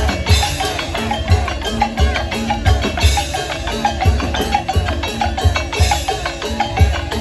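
Instrumental band music with a steady drumbeat of about two low thumps a second under a busy melody.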